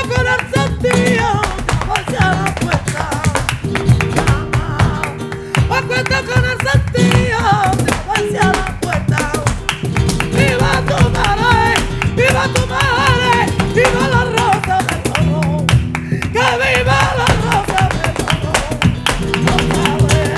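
Flamenco song: a woman's voice sings wavering, ornamented lines over flamenco guitar and bass, with sharp hand-clapping (palmas) marking the rhythm throughout.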